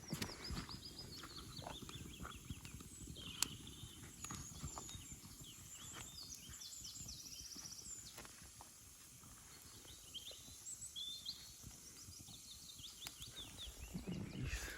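Small songbirds singing, with repeated high chirps and trills throughout, over a low rumble and scattered sharp clicks and knocks.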